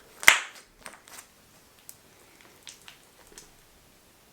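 A single sharp pop of slime about a third of a second in, followed by faint sticky crackles and clicks as the slime is handled.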